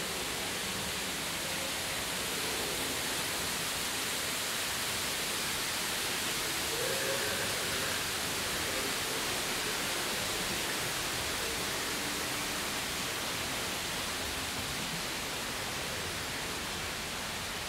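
Steady rushing of water around the ride's boat channel, an even hiss that holds level throughout, with faint scattered tones beneath it.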